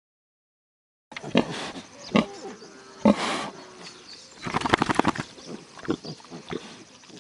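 About a second of silence, then farmyard animals: a hen clucking and pigs grunting in scattered calls, with a rapid run of pulsed calls about halfway through.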